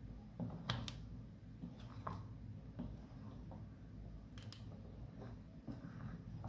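A black plastic ladle stirring thick sauce in a metal pot, giving a few faint taps and scrapes against the pot, over a low steady hum.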